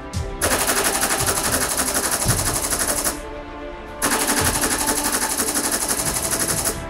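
Machine-gun fire sound effect in two long bursts of rapid shots, each about three seconds, with a gap of about a second between them.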